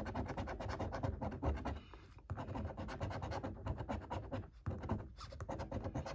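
A coin scraping the silver coating off a paper scratchcard in quick back-and-forth strokes, with a short pause about two seconds in.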